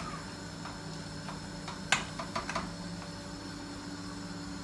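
A metal spoon clicking and tapping against a wok while a saucy prawn stir-fry is stirred: a handful of short taps in the first few seconds, the loudest about two seconds in, over a steady low hum.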